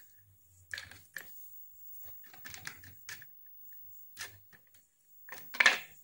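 Hard plastic clicking and clattering as a homemade cabin air filter, mesh panels in a plastic frame, is fitted into and handled in its plastic holder: a string of irregular clicks, the loudest near the end.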